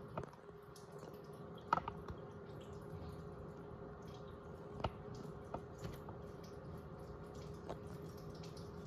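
Toy front-loading washing machine running with soapy water in its drum: a faint steady motor hum with water dripping and sloshing, and a few sharp clicks, the loudest a little under two seconds in.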